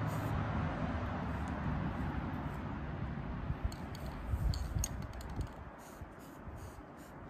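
Aerosol spray paint can hissing steadily as paint is sprayed onto garden stakes, fading out about three seconds in, followed by a few light clicks and rattles of the can being handled.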